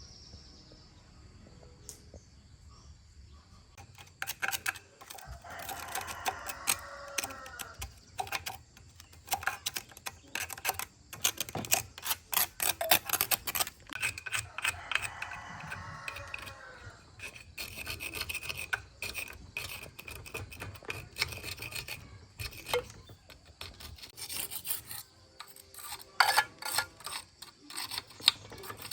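Hand scraping or rasping work: rapid, irregular scraping strokes starting about four seconds in, with a few longer rasping passes.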